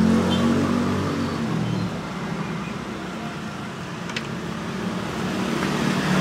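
Street traffic: a vehicle's engine passes close by and fades away over the first two seconds, leaving a steady traffic hum. There is a single light click about four seconds in, and the traffic grows louder again near the end.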